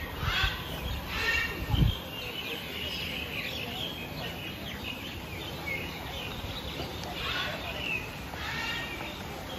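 Birds chirping and calling in an aviary, in short scattered calls, mixed with the faint chatter of other visitors. There are two dull thumps in the first two seconds.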